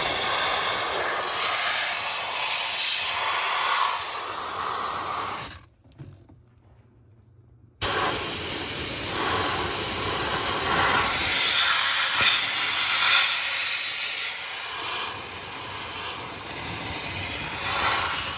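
Steady, loud hiss from a tool melting the ice build-up in a refrigerator freezer. It cuts out about five and a half seconds in and starts again about two seconds later.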